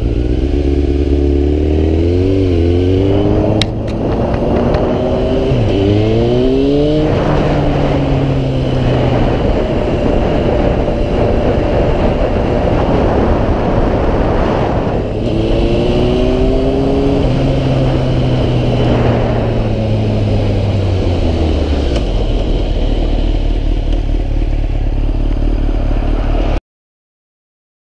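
Sport motorcycle engine running under way, its pitch rising and falling several times as it speeds up and slows, over a steady rush of wind noise. The sound cuts off suddenly about a second before the end.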